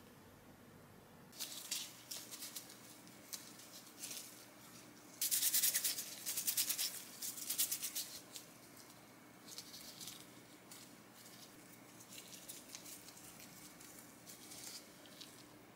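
Thin disposable plastic gloves crinkling and rustling as gloved hands roll and squeeze soft glutinous-rice donut dough, in scattered short bursts with a denser run of rapid crinkling about a third of the way in.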